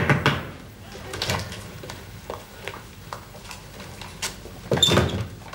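A few quick knuckle knocks on a wooden door, then near the end the latch clicks and the double doors are pulled open.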